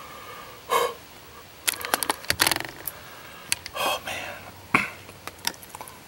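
Camera handling noise inside a ground blind: a run of clicks and knocks as the camera is turned round, with two short breathy huffs, one before the clicks and one after.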